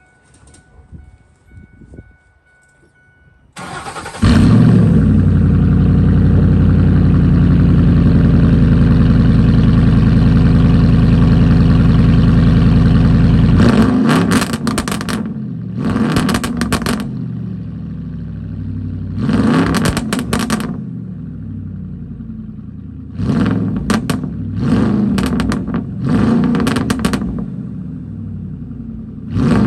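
2006 Ford F-150's 5.4 L Triton V8 cold-started through straight pipes with only the catalytic converters: the starter cranks briefly about three and a half seconds in and the engine catches into a loud, steady high idle. After about ten seconds it drops to a lower idle and is revved in short blips several times.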